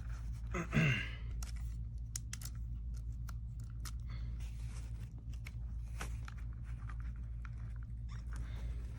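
A plastic power bank being handled, with scattered short clicks and rustles over a steady low hum. There is a brief falling-pitched sound about a second in.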